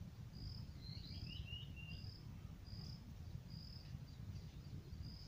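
Faint insect chirping, short high chirps repeating evenly about every 0.8 seconds, with a brief flurry of lower chirpy notes between one and two seconds in, over a low rumble.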